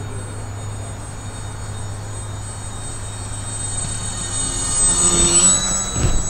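Twin propeller motors of a radio-controlled model of a British Andover twin, a steady whine growing louder as it makes a low pass overhead, peaking about five seconds in with the pitch dropping as it goes by.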